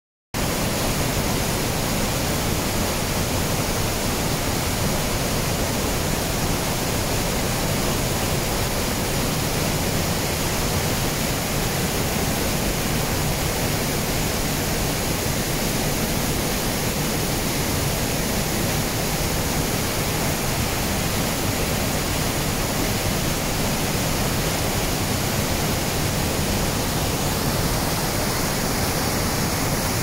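The Rhine Falls, a large river waterfall, heard at close range: a steady, loud rush of white water crashing over the rocks, with no change in level.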